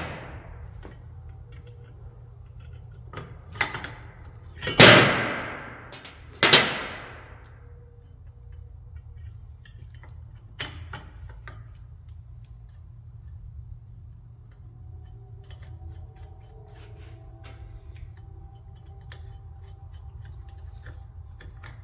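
Sharp metal clanks that ring out, the two loudest about five and six and a half seconds in, with smaller knocks around them. Light clicks and taps of tools on metal parts follow.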